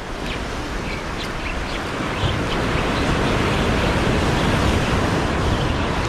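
Sea waves breaking and washing over the rocks of a jetty: a steady rushing surf that swells louder about two seconds in.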